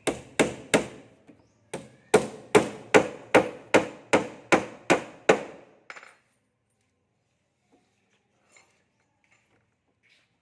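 Hammer striking wood in a run of steady, even blows, about two and a half a second, with a short pause after the first three. The blows stop about six seconds in.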